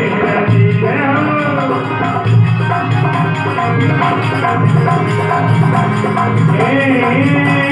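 Music from a Rajasthani devotional folk song (bhajan): drum and jingling percussion keep a steady beat under a repeating melody, in a passage between sung lines.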